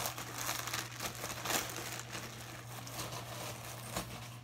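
Wrapping crinkling and rustling in irregular bursts as a shirt is unwrapped and unfolded by hand.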